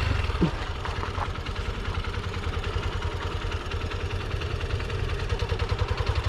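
Single-cylinder 200 cc motorcycle engine idling with an even, rapid pulse that grows stronger near the end.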